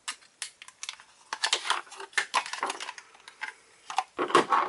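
Clear plastic packaging sleeve crinkling and crackling in irregular bursts as a small power bank is worked out of it by hand. The crackling comes in a busy run partway through, and there is a louder clatter near the end.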